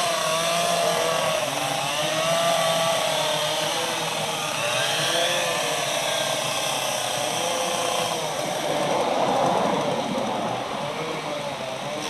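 Petrol chainsaw cutting into a dead palm trunk, its engine pitch wavering up and down as the chain bites the wood. Near the end the steady tone gives way to a rougher rushing noise for a couple of seconds.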